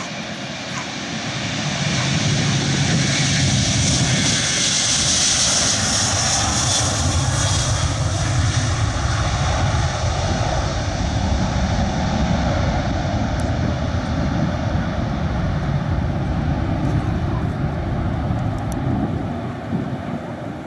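Airbus A330's twin jet engines at takeoff thrust as it rolls, lifts off and climbs away. The sound swells about two seconds in, with a loud hiss over the engine noise at its closest, then settles into a steady deep rumble that eases slightly near the end.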